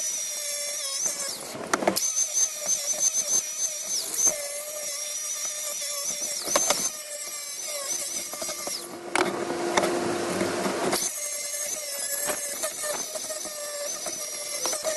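A high-speed rotary tool cutting and carving wood, running with a steady high-pitched whine that wavers and sags as the bit bites, briefly easing off a few times.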